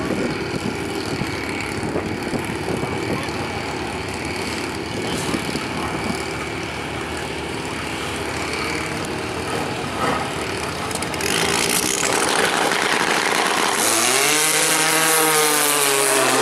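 A turbocharged drag-racing snowmobile and a 2000 Kawasaki ZX-6R sport bike running at the start line, then launching at full throttle about eleven seconds in. From about fourteen seconds a high-revving engine note climbs and falls in pitch as they accelerate down the quarter mile.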